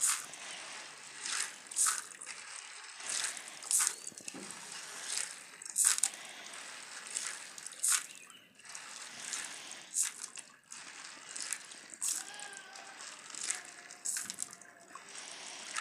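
Dry beans being washed by hand in water in a sieve: water sloshing, with a short gritty scrape of beans rubbing together about once a second.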